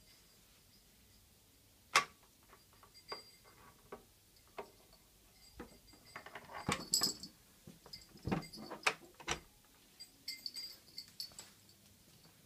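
A SureFlap cat flap being pushed through by a cat: a sharp click about two seconds in, then a run of plastic knocks and clacks from the flap. Light jingling near the end.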